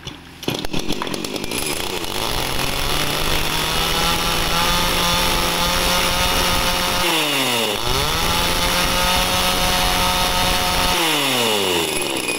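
Komatsu G2500 chainsaw, a small Ryobi-built two-stroke of about 27 cc, catching about half a second in and revving up to a steady high-pitched full throttle. About 7 s in the throttle is let off and the engine drops, then revs straight back up, and it drops off again near the end.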